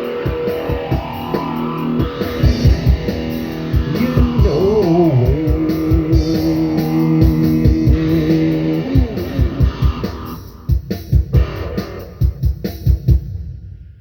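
Rock band instrumental passage: electric guitar holding long notes, with a bend about five seconds in, over bass and steady drum hits. The held notes drop out around ten seconds in, leaving a run of drum hits before the music stops near the end.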